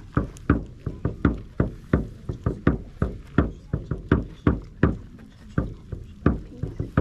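A rapid, uneven series of deep thuds, about three a second, each ringing briefly, some much harder than others.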